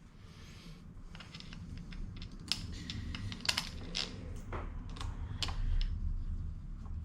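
Irregular clicks, taps and short scrapes of hands and tools working a scooter tyre and tube onto its wheel rim, the clicks densest in the middle, over a low rumble of handling noise.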